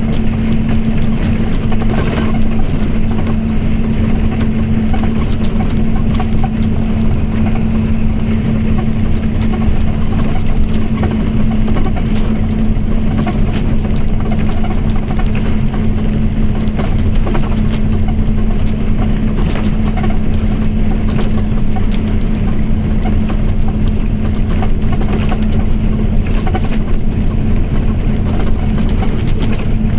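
Mercedes-Benz OF1722M Euro III bus running at a steady speed, its differential giving a steady whine over the engine and road noise.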